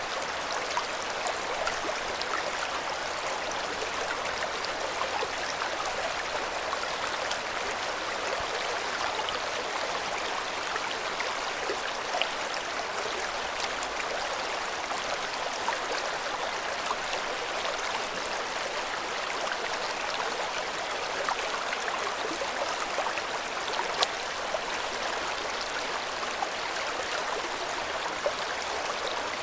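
River water flowing: a steady rushing of water, with a few brief sharper splashes.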